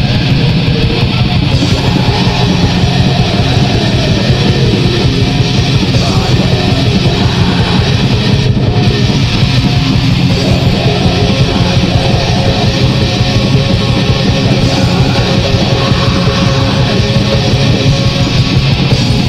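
Raw black metal recording: distorted electric guitar and drums playing loud and dense.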